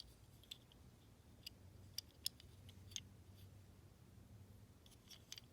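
Near silence with a low hum and a scattering of faint, sharp clicks and ticks, about a dozen in all, bunched around two to three seconds in and again near the end: small handling clicks against a die-cast toy car.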